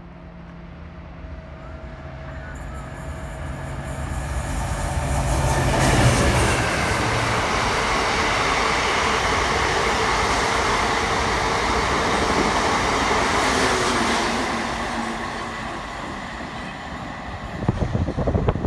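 GB Railfreight Class 69 diesel locomotive approaching with a steady engine drone that grows louder and passes about six seconds in. A long train of box wagons follows, rolling past loudly until it fades in the last few seconds, with a brief burst of low noise near the end.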